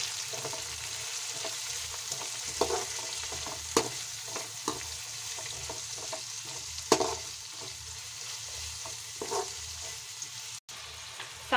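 Sliced onions sizzling as they fry in hot oil in a kadhai, stirred with a slotted spoon that knocks and scrapes against the pan a few times.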